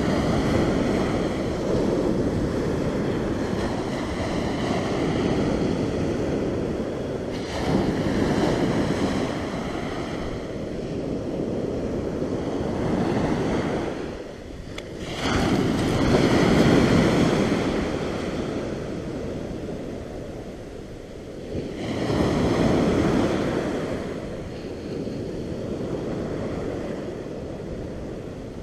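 Ocean waves breaking and washing up a beach, the surf swelling and easing in slow surges every several seconds, with wind buffeting the microphone.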